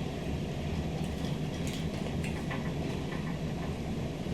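Steady low background hum, with a few faint clicks in the first half.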